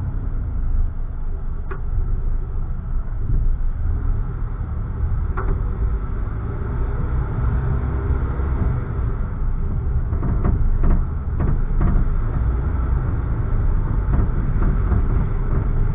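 A car driving along a city street, heard from inside the cabin: a steady low rumble of road and engine noise, with a few short clicks or rattles, most of them around ten to twelve seconds in.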